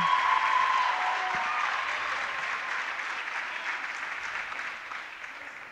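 Crowd applauding a player introduction, the clapping dying away gradually.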